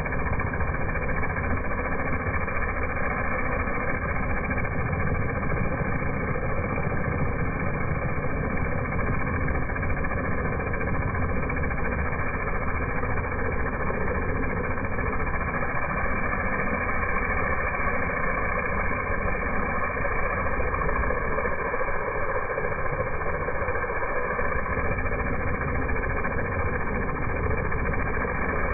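Pressure washer running steadily: its engine drones while the high-pressure jet sprays onto wet asphalt and a brick curb.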